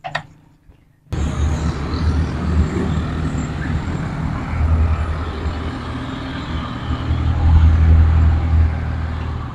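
Steady low rumble of motor-vehicle traffic that cuts in abruptly about a second in and swells louder twice.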